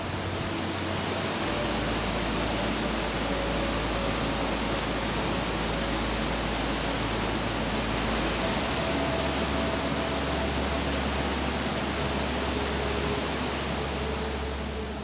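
Waterfall roaring: a loud, steady rush of falling water, with soft sustained music faintly underneath.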